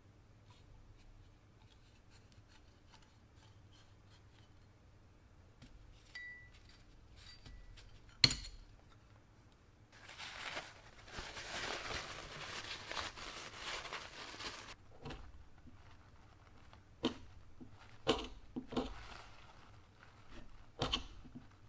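Hands working on small parts during a repair: scattered light clicks, one sharp click about eight seconds in, then several seconds of rough rasping noise, followed by a few knocks and taps.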